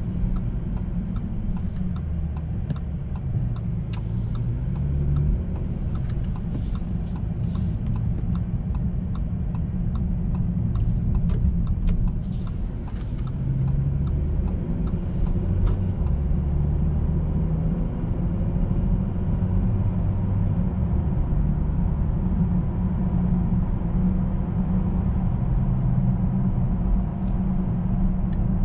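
Inside the cabin of a 2019 Bentley Continental GT cruising: a steady low engine and tyre rumble whose pitch shifts a little with speed. A faint quick ticking runs through the first half.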